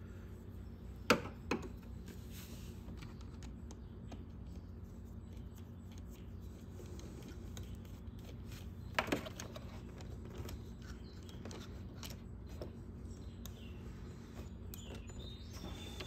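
Light clicks and taps of a screwdriver working at a motorcycle's battery terminals, with sharp double clicks about a second in and again about nine seconds in, over a faint steady hum.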